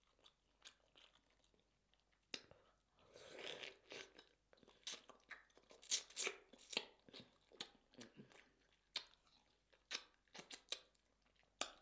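Close-miked eating sounds of food drenched in a seafood-boil-style sauce: wet chewing, lip smacks and irregular clicks. A longer, noisier sound lasts about a second, some three seconds in.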